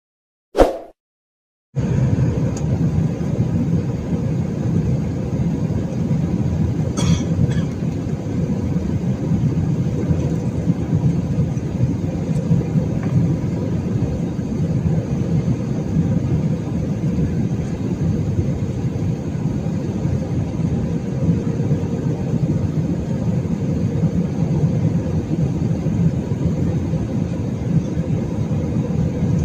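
Airliner cabin noise heard at a window over the wing jet engine: a steady rumble of the engines and the aircraft rolling on the runway, with a steady hum running through it. It starts about two seconds in, after one short, loud blip.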